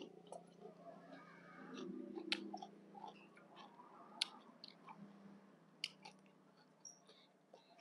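A person chewing a mouthful of crunchy shredded green papaya salad close to the microphone: soft, wet chewing with a few sharp clicks about two, four and six seconds in.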